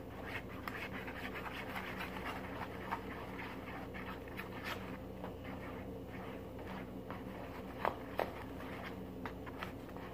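Glue and shaving cream being stirred in a container: a run of soft scrapes and squelchy clicks, with two sharper clicks near the end, over a steady low hum.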